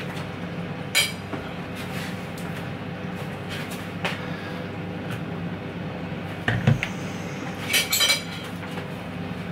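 Kitchen handling sounds over a steady low hum: a sharp click about a second in, then a heavier knock and a quick run of metallic clinks near the end as a stainless steel electric kettle is set down on the worktop.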